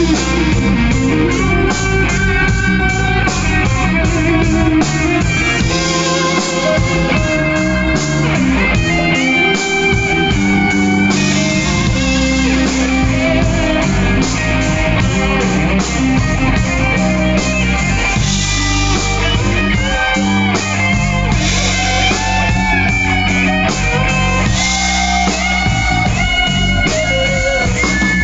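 Two electric guitars jamming a blues, with a lead line full of string bends over steady accompaniment.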